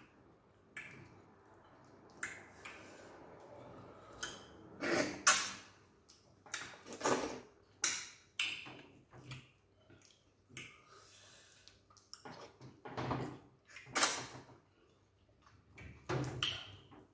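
Close-up mukbang eating sounds of two people eating okra soup and starch with their fingers: chewing and lip smacks in irregular bursts, loudest about five seconds in and again around seven and fourteen seconds.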